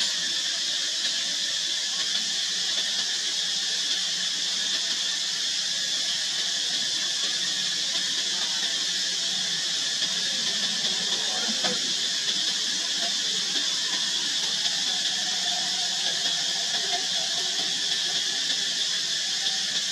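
Steady high-pitched droning hiss that holds an even level throughout.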